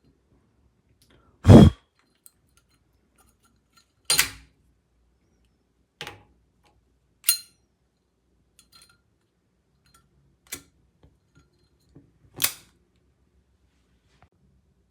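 Six sharp metallic clacks from a Zippo lighter being handled, spaced a second or more apart, the loudest about a second and a half in.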